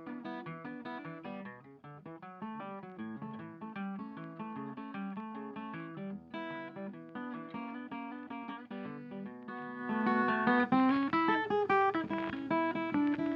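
Background blues music on acoustic guitar, plucked and strummed, getting louder and fuller about ten seconds in.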